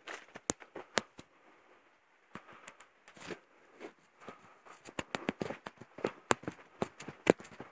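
Footsteps crunching on the dry leaf litter and dirt of a forest trail. Sparse and faint for a second or so near the start, then quicker and denser through the second half.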